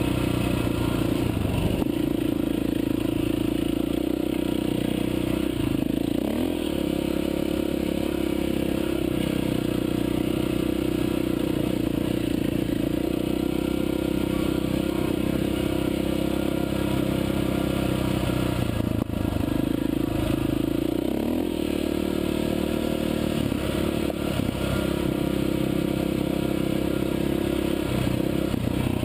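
Off-road dirt bike engine running at a steady pace along a bumpy dirt trail, the revs dipping and picking up again a few times.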